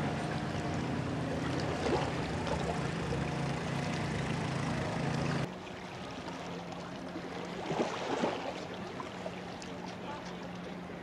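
Steady low motor hum over water lapping. The hum drops suddenly in level about halfway through and carries on fainter.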